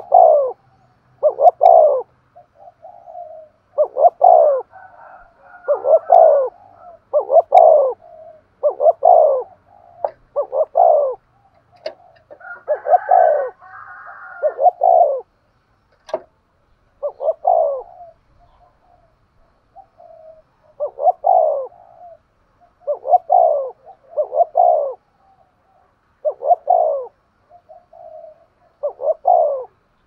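Spotted dove cooing in the vigorous 'thúc gù' style: short coos, each falling in pitch, following one another about once a second with a few brief pauses.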